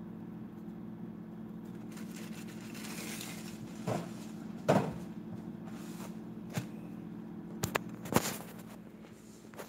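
Plastic bag of breadcrumbs rustling, then a few knocks and thumps and clicks as things are set down and the camera is picked up and handled close to the microphone. A steady low hum runs underneath.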